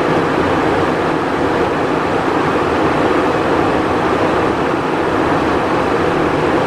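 Steady cockpit noise of a Cessna Citation Encore business jet in flight: an even rush of airflow and turbofan engine noise, unchanging throughout, heard inside the cockpit.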